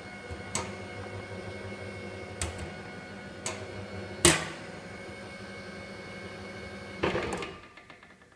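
Electric motor of an ICKO Star honey extractor running with a steady hum, broken by a few sharp clicks and knocks, the loudest about four seconds in. A clatter comes about seven seconds in as the motor is switched off, and the hum runs down and fades out near the end.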